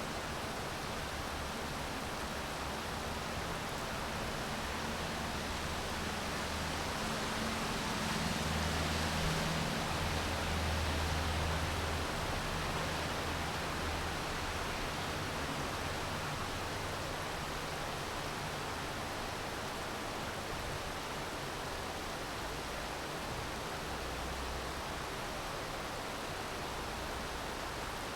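Steady hiss of rain falling. A low rumble swells underneath about a third of the way in and fades again.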